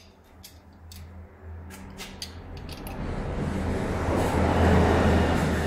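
A steady low hum with a few sharp clicks, then a loud rush of air building from about three seconds in and peaking near the end. Air is being blown into a tubeless tyre on a tyre changer while the bead is pushed against the rim, and it escapes through the gap of a bead that is not yet seated.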